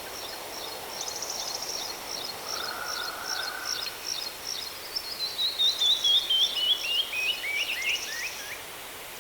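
Birds calling over the steady rush of a waterfall: repeated high chirps, then about halfway through one bird gives a loud series of quick notes, about four a second, that step down steadily in pitch.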